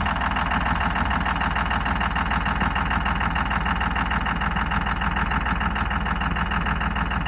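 A 5.9L Cummins inline-six turbo-diesel in a second-generation Dodge Ram idling steadily, with a fast, even pulse.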